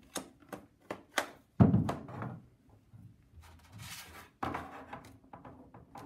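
Clear plastic sneeze-guard panels being handled and fitted together on a tabletop: a series of light clacks and taps, with one louder thunk about a second and a half in and a brief scrape around four seconds in.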